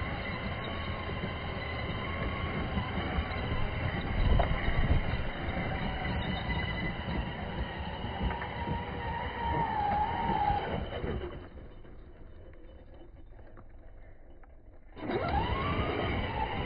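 ARRMA Big Rock 6S RC monster truck's brushless motor whining up and down in pitch as it is throttled hard, over the rough rush of its tyres spinning in loose dirt. About two-thirds of the way through it goes much quieter for a few seconds, then comes back with a whine that swoops up and falls away.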